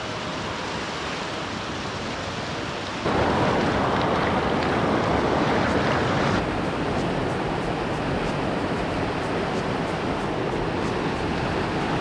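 Rushing mountain creek water pouring over rock ledges and small cascades, a steady rush. From about three to about six seconds in it is louder and closer, as at the water's surface.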